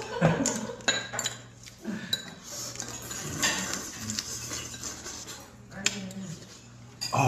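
Eating utensils clicking and clinking against plates and bowls in irregular, scattered taps, over a low steady hum.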